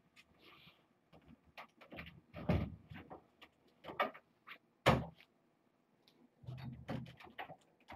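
A string of irregular knocks and thumps, the sharpest about five seconds in and a cluster of duller thuds near the end.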